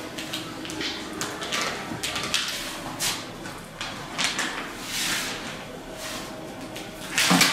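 Rustling and handling noises of plastic: a specimen bag and a disposable protective gown as a swab sample tube is handled. The rustles are irregular, with a louder one near the end.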